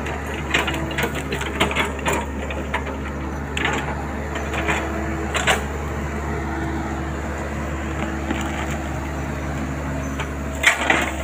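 Mini crawler excavator's diesel engine running steadily as it digs wet peat, with scattered short knocks and scrapes from the bucket and arm working the soil.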